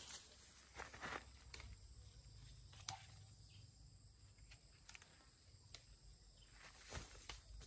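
Near silence: a faint steady high-pitched whine under scattered soft clicks and taps.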